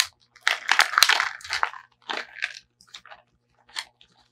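Clear plastic bags and packaging crinkling and crackling as they are handled and pulled from a toy playset's box: a dense run of crackles in the first couple of seconds, then sparser, separate crackles.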